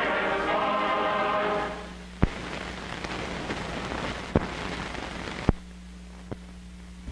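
A choir singing the closing music, which stops about two seconds in, then crackling, hissing soundtrack noise from an old film transfer with three sharp pops, ending in a steady low hum.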